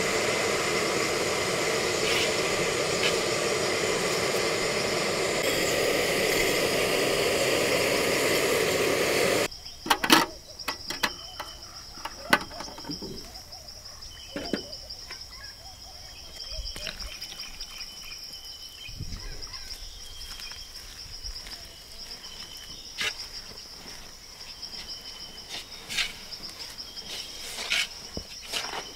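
A loud, steady noise with no clear pitch for about the first nine seconds, cut off abruptly. After it, an insect trills steadily in the background, with scattered knocks and clatter of steel cookware being handled.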